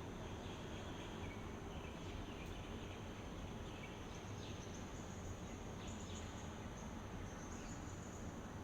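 Faint outdoor ambience: insects calling in a steady high tone over an even low background hiss, with a few faint short chirps scattered through.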